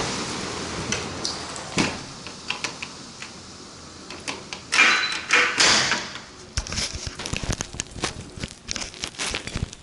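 Storm wind and rain muffled as a glass door is pulled shut, with a knock as it closes about two seconds in. Indoors after that: a brief rushing noise, then a quick run of light clicks and taps on a tile floor.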